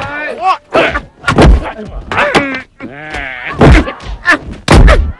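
Fight sound: heavy thuds of punches and blows landing, several in quick succession, mixed with fighters' shouts and grunts.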